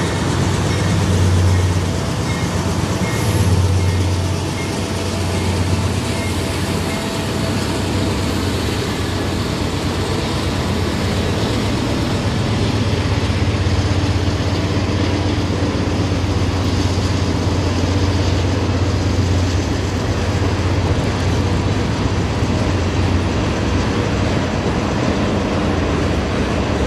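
Freight cars of a manifest train, covered hoppers, boxcars and tank cars, rolling steadily past with a continuous low rumble and clatter of wheels on the rails.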